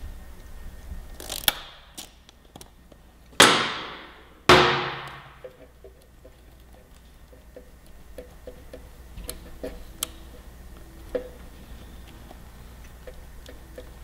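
Hand-tool work on a motorcycle throttle body as a 10 mm nut on the throttle cable linkage is loosened: small scattered metallic clicks and ticks, with two loud knocks that ring out briefly, about three and a half and four and a half seconds in.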